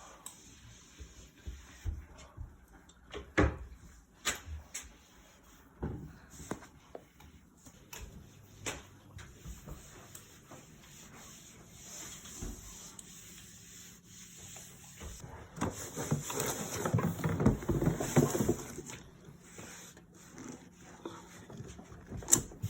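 Things being handled and moved while tidying: scattered knocks and clatters, with a few seconds of rubbing or scrubbing about two-thirds of the way in.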